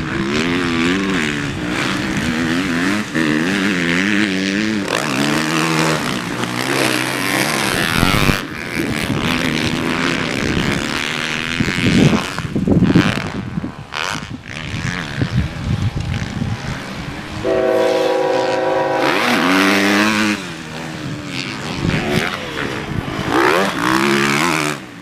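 Motocross dirt bikes racing around the track, their engines revving up and dropping off again and again as the riders shift and work the throttle. About three quarters of the way through, one engine is held at steady revs for a couple of seconds.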